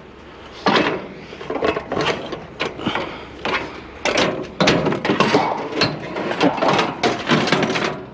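Irregular knocking and rattling clatter of scrap items being handled and loaded, hard objects knocking and scraping against one another, with sharp knocks about every half second through the middle.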